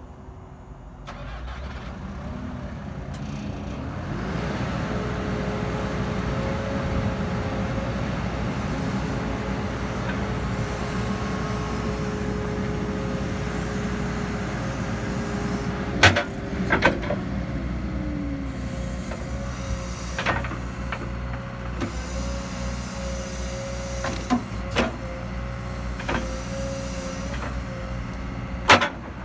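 Caterpillar 314 hydraulic excavator's diesel engine running, growing louder over the first few seconds. A steady whine carries on above it and slides down in pitch a little past halfway. Several sharp metallic clanks come in the second half.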